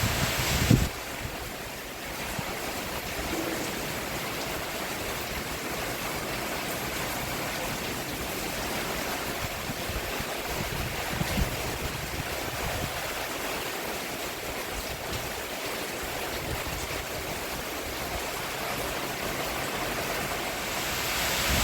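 Steady rain falling on a roof, an even hiss. Just under a second in there is a low thump, after which the rain runs a little quieter and steady.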